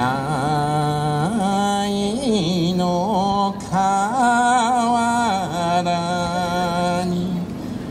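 Japanese folk song accompanying a hat dance: a singer holds long notes that bend and waver in pitch, with short breaks between phrases.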